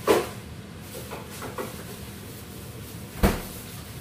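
A fridge-freezer door being handled: a loud knock right at the start, a few light clicks, then a heavier, deeper thud a little after three seconds in as the door shuts.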